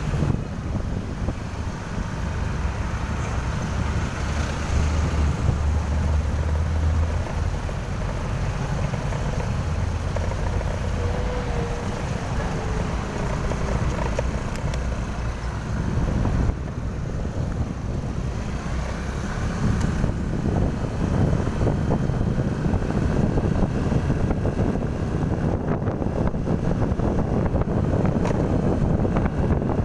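Motor vehicle running on the road, a steady engine and traffic rumble with low wind buffeting on the microphone.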